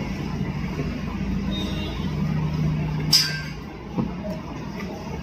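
Low steady rumble of road traffic, with a sharp hiss just after three seconds in and a single knock about a second later.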